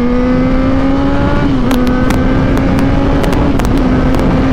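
Yamaha XJ6's 600 cc inline-four engine running steadily while riding, its pitch creeping up slightly and then holding level after a brief hitch about a second and a half in. Wind rush on the microphone runs underneath.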